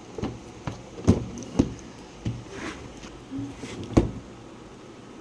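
Sharp knocks and clicks from the router's box and packaging being handled and opened, about half a dozen irregular strokes with the loudest one about four seconds in.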